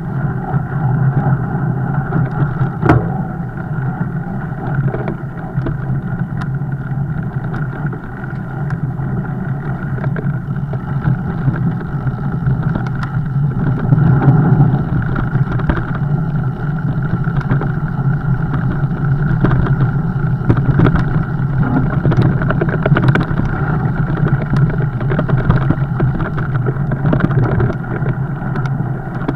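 Fat bike riding noise: a steady low drone of tyres and drivetrain, with scattered clicks and rattles.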